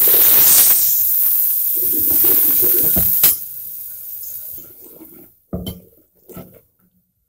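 Wet ground coconut masala paste poured into a hot aluminium pot of fried onion and tomato, sizzling loudly as it hits, the sizzle fading over the next few seconds. A sharp knock of the steel ladle on the pot about three seconds in, then a few short scrapes and taps of the ladle stirring.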